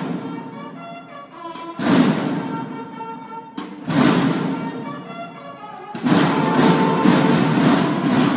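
Banda de guerra of bugles and marching snare drums playing: the bugles hold chords while the drums crash in with loud massed strikes about every two seconds, then drum continuously from about six seconds in.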